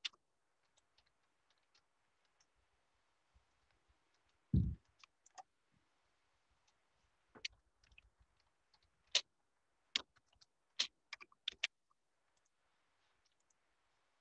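Computer keyboard typing and mouse clicks: scattered sharp clicks in irregular runs, busiest in the second half, with one short low thump about four and a half seconds in.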